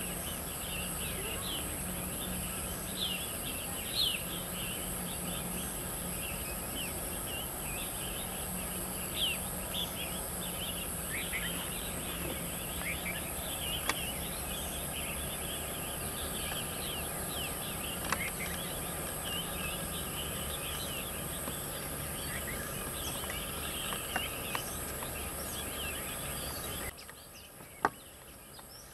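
Outdoor ambience of many small birds chirping over a steady high-pitched insect drone. Near the end the sound drops to a quieter background with a single sharp click.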